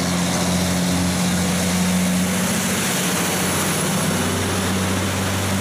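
Diesel semi-truck hauling a shipping container, its engine giving a steady low drone under a constant hiss of tyres on a wet road.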